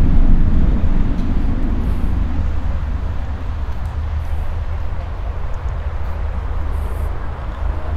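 Outdoor city ambience: a low vehicle rumble fades away over the first two to three seconds, leaving a steady low hum of traffic, with people's voices around.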